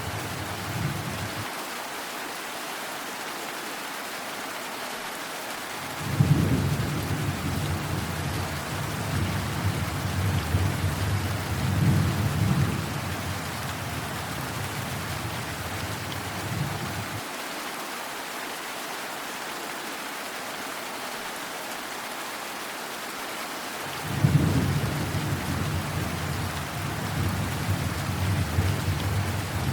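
Steady heavy rain with two long rolls of thunder. The first breaks suddenly about six seconds in and rumbles on for about ten seconds; the second breaks about twenty-four seconds in and is still rolling at the end.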